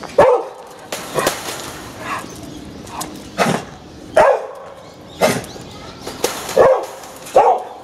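Old English Sheepdog barking at squirrel monkeys in their cage: a string of about eight short barks, roughly one a second.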